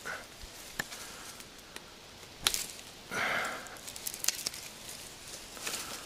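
A few sharp snaps and knocks and one short rustle, from twigs and camp gear being handled while setting up a campfire.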